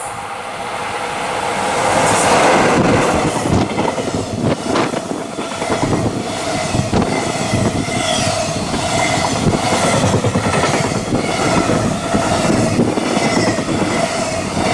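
Electric-hauled container freight train passing close by. It grows louder as the locomotive arrives about two seconds in, then the wagons roll past with a rhythmic clickety-clack of wheels over rail joints and a steady high ringing tone from the wheels.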